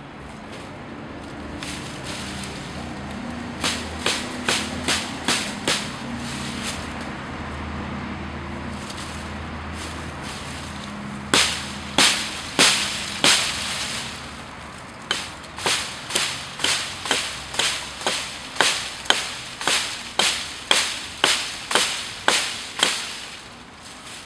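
Hatchet chopping into a green poplar branch: sharp strikes, first a few in loose groups, then a steady run of about two blows a second through the second half.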